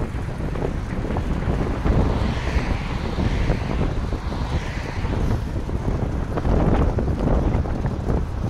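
Wind buffeting the microphone of a camera on a moving bicycle: an uneven low rush, with a brighter hiss that swells and fades in the middle.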